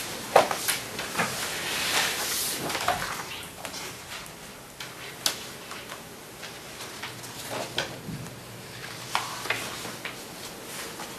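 Paper sheets rustling and pages being turned on a table, with a few sharp clicks and knocks, the loudest about half a second in.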